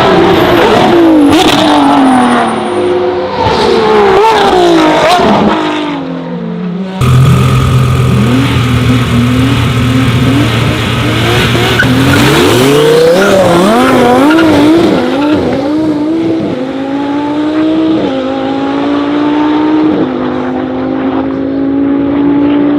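Supercar engines revving and accelerating, the pitch sweeping up and falling back with each blip and gearshift. The sound changes abruptly to a different car about seven seconds in, and near the end the engine climbs through a series of upshifts, dropping in pitch at each change.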